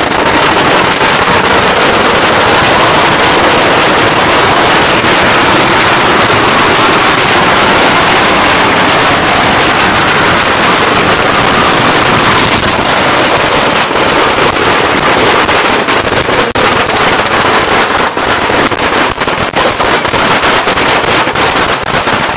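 A long string of firecrackers going off in a dense, very loud crackle that starts suddenly, the pops growing more separate in the second half.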